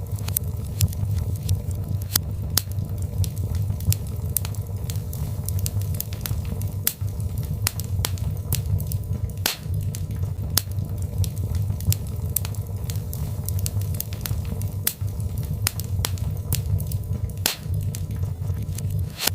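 Birch-log fire burning in a fireplace, crackling: frequent sharp pops and snaps of varying loudness over a steady low rumble of the flames.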